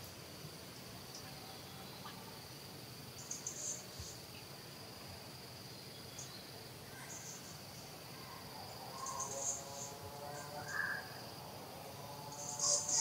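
Insects trilling steadily at one high pitch, with short, louder high chirps three or four times and a faint pitched call in the second half.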